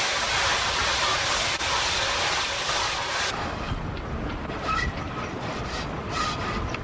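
A train on the move behind the GER N7 steam tank locomotive. It opens with a steady loud hiss, then changes abruptly about three seconds in to a low running rumble with rail clicks and a few brief wheel squeals.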